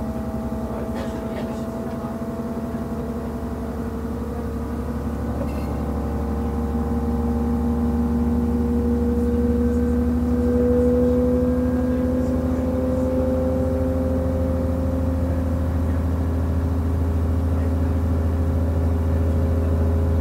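Inside a DB class 628.4 diesel railcar: its MTU 12V183TD13 diesel engine working under load as the train accelerates, with several whining tones slowly rising in pitch. It grows louder over the first ten seconds or so, then runs steadily.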